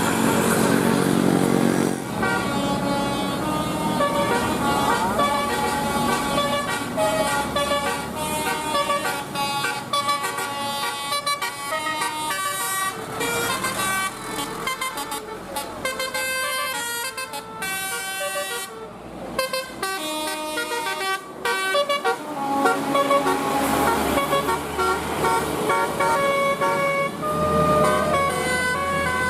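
Bus telolet horn, a multi-tone musical horn, playing quick tunes note after note, with a couple of short breaks. A deeper horn blast sounds at the start.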